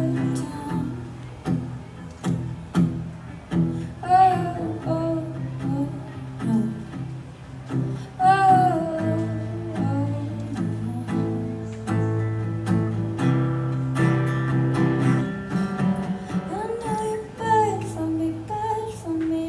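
Live acoustic guitar strummed and picked, with a woman singing over it in a few sung phrases, amplified through a PA.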